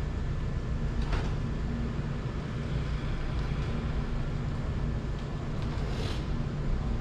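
Steady low rumble of outdoor background noise, with brief sharper sounds about a second in and again near the end.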